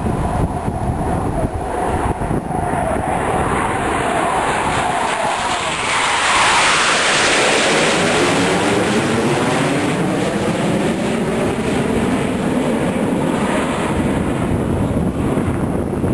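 Jet noise from a formation of three delta-wing jet fighters flying past low. The roar swells to its loudest and brightest about six to seven seconds in, with a sweeping, phasing quality, then dulls to a lower rumble as they pull away.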